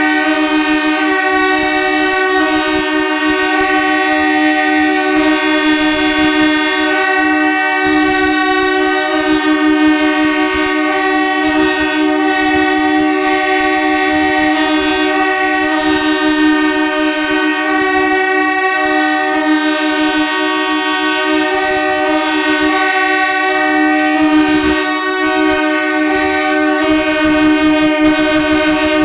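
Horns of several trains sounding together in one long unbroken blast, a steady chord of several overlapping tones.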